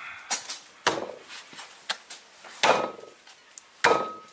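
A cleaver chopping skin-on mutton on a chopping board. There are sharp chops roughly a second apart, some heavier than others, and the blade gives a short metallic ring on the harder strikes.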